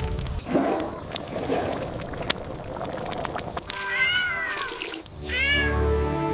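A cat meows twice, short rising-then-falling calls about a second and a half apart, after a stretch of clicky rustling noise; music comes in between the two meows.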